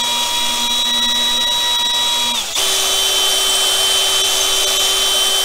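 Cordless drill running with its bit spinning in a freshly drilled hole in wood, eased in and out to clear the debris from the hole. A steady motor whine that changes pitch about halfway through.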